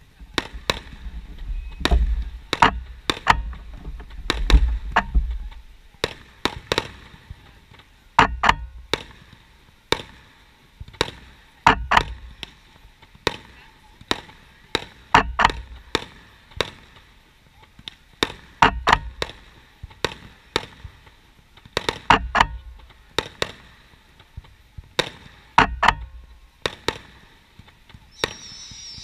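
Fireworks show: aerial shells banging one after another, one to two a second and often in quick pairs, with a heavy low rumble in the first few seconds. A high hiss starts near the end.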